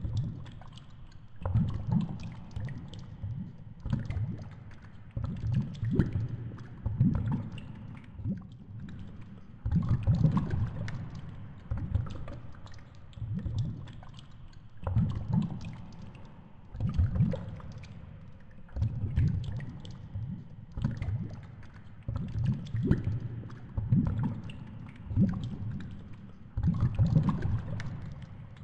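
Underwater sound picked up by a GoPro in its waterproof housing hanging on a fishing line: low rumbling surges of moving water every second or two, with scattered sharp clicks and ticks.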